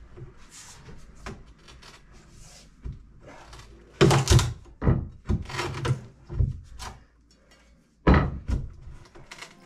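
Old wooden floorboards being levered up with a pry bar: a run of sharp wooden knocks and thunks from about four seconds in, and another cluster just after eight seconds.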